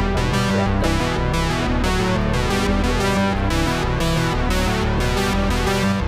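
Background music: electronic synthesizer and keyboard track with a steady beat.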